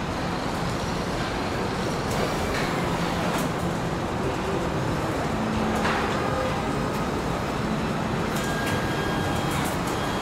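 Truck assembly plant floor: a steady din of machinery with a few scattered clicks and clanks, and a faint high steady tone coming in near the end.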